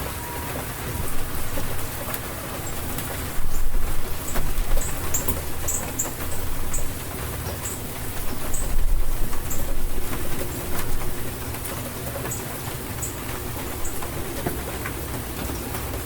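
Steady rainfall in an April rainstorm, with a low rumble of thunder swelling twice, about three and a half and eight and a half seconds in. Short high chirps are scattered through it.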